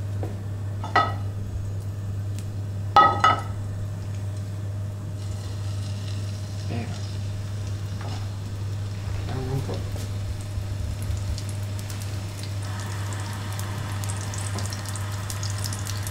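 Rolled rabbit saddle searing in hot oil in a frying pan over a gas burner, a sizzle that grows stronger near the end. Two short ringing metallic clinks about one and three seconds in, over a steady low hum.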